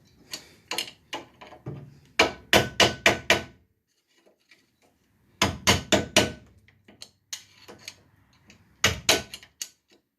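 Hammer blows on the rusted steel rear brake cable fitting of a 1966 Dodge Dart, knocking it loose because it is seized after decades of sitting. The blows come in quick runs of four to six with short pauses between, some leaving a brief metallic ring.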